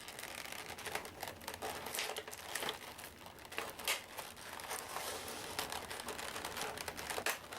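Sticky tape being peeled off plastic packaging, with the plastic crinkling and crackling in irregular bursts as it is handled.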